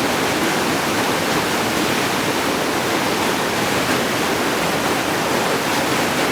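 Steady, unbroken roar of whitewater rushing through river rapids.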